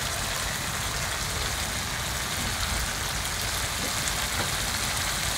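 Spice paste frying in oil with a splash of water in an aluminium karahi: a steady sizzling hiss.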